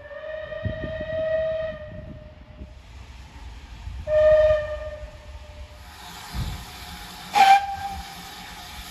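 Steam locomotive whistle sounding a single note: a blast of about two seconds, then a shorter, louder blast about four seconds in. Near the end comes a very brief, higher-pitched toot, over low rumble and hiss.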